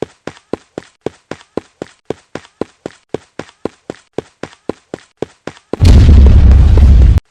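A steady rhythm of short knocks, about four a second. Near the end a very loud, distorted, bass-heavy blast, like an explosion sound effect, lasts about a second and a half and cuts off suddenly.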